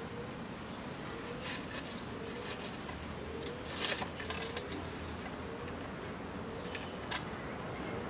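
Hands and a small tool working among seedlings in a bonsai pot: a handful of short, sharp clicks and rustles, the loudest a little before halfway through, over a faint steady background.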